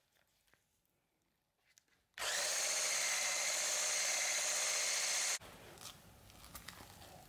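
Electric hand blender with a whisk attachment switched on in a plastic beaker of mascarpone cream, its motor running at a steady high speed for about three seconds before it stops abruptly, whipping the cream.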